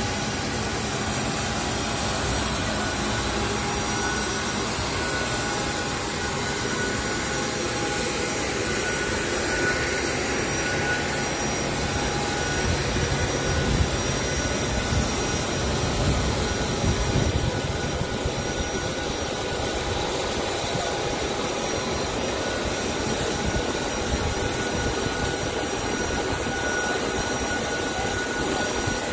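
Steady aircraft turbine noise on an airport apron: a constant high-pitched whine over a low rumble that swells a little midway.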